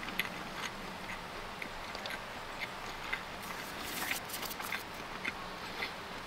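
Close-up chewing of pizza: short wet mouth clicks roughly twice a second, with a denser crunchy stretch about four seconds in, over steady outdoor background noise.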